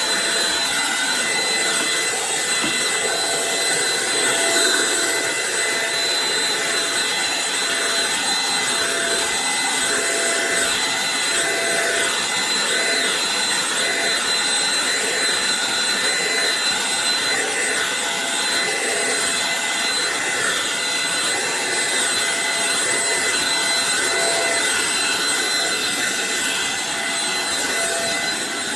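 Eureka NES215A Blaze stick vacuum running steadily: a high motor whine over a rush of air.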